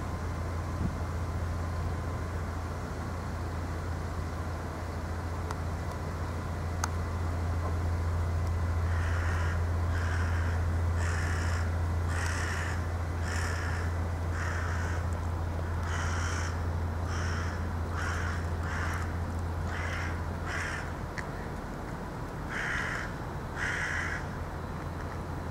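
A crow cawing, a long run of short, harsh caws about once or twice a second that starts about a third of the way in and goes on until near the end, over a steady low hum.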